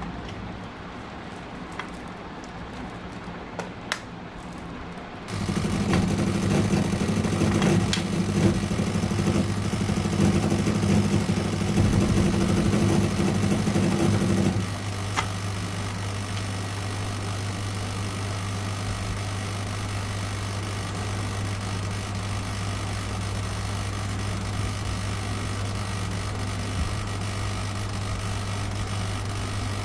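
A steady machine hum that starts abruptly about five seconds in, runs louder for about ten seconds, then drops to a lower, even hum.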